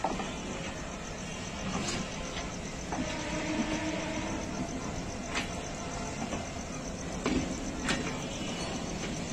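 Bangladesh Railway intercity passenger coaches rolling slowly past: a steady low rumble, broken by a few sharp, irregular clacks of wheels over rail joints. A faint drawn-out tone runs under it from about three seconds in.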